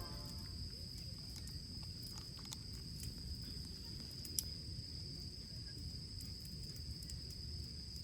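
Outdoor night ambience: insects trilling steadily on one high note over a low rumbling background, with a few sharp clicks, the loudest about four and a half seconds in.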